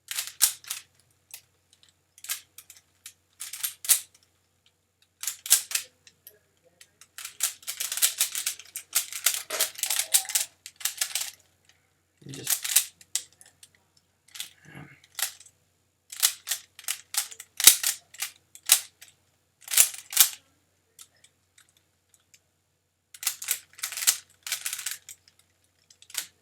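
Plastic Rubik's Cube being twisted fast: runs of rapid clicking and clattering as the layers turn, separated by short pauses, with one longer run of about four seconds.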